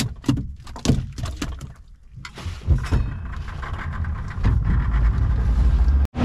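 A few knocks and clatter, then a boat engine's low rumble building from about halfway in and cutting off suddenly near the end.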